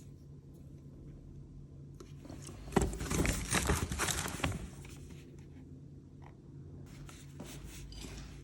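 Packaging being handled, crinkling and scraping, loudest in a burst from about two to five seconds in and again more faintly near the end, over a low steady hum.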